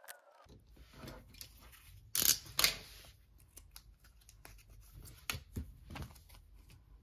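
Rustling and crinkling of a taped plastic photocard sleeve being opened by hand, with the card being slid out. There are two louder scratchy rustles about two seconds in.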